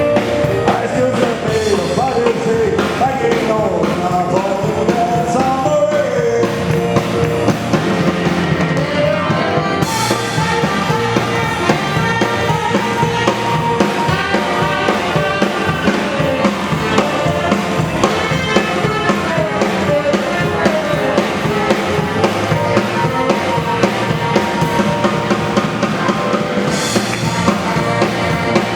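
Rock-and-roll style music with drum kit and guitar, a melody line weaving over a steady beat.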